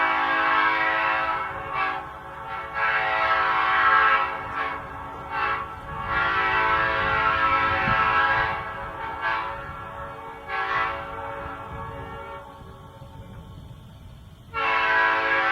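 Five-chime locomotive air horn sounding its chord, held throughout and pushed into a series of louder blasts of one to two seconds each. A loud blast starts again near the end.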